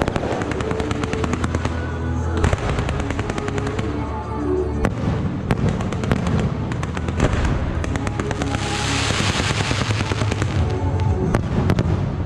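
Aerial firework shells launching and bursting in quick succession, many sharp bangs, with a loud hissing spell a little past the middle. Music plays along underneath.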